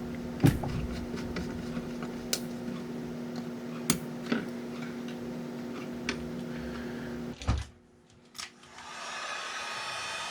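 A steady electrical hum with a few sharp clicks of small parts being handled; it cuts off suddenly after a knock about seven and a half seconds in. After about a second of near silence, a different steady whir with a high tone comes up.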